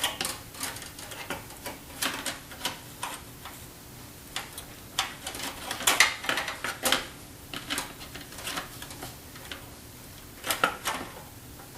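A graphics card being lined up and worked into place in a steel computer case: irregular light clicks and knocks as its metal bracket and edge connector meet the case's expansion slots and the motherboard slot.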